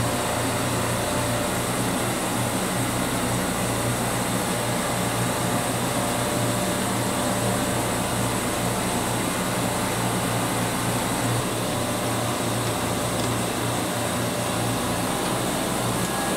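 Steady drone of running refrigeration machinery, an even rushing noise with a constant low hum and no change throughout.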